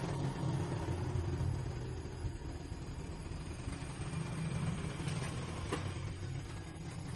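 A steady low rumble of running machinery, with a couple of faint light clicks near the end.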